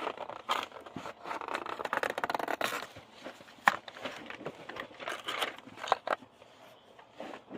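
A Hot Wheels blister pack being opened by hand: crinkling plastic and tearing card, with several sharp clicks and snaps, the loudest about halfway through.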